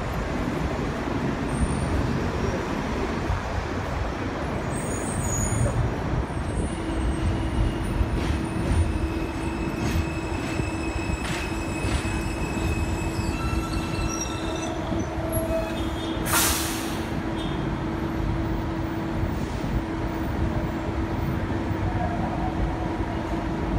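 New York City subway train on the elevated line, running with a continuous low rumble. A steady whine joins in after about seven seconds, and there is a short hiss of air about two-thirds of the way through.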